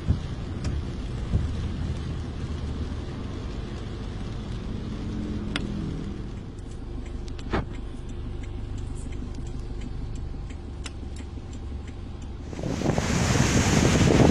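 Low steady rumble of a motor vehicle running, with a few faint clicks. Near the end it gives way to loud wind noise buffeting the microphone.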